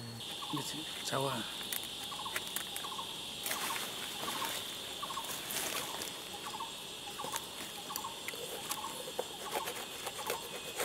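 Forest ambience: a steady high-pitched insect drone, with a short chirping call repeated about every two-thirds of a second and scattered light clicks.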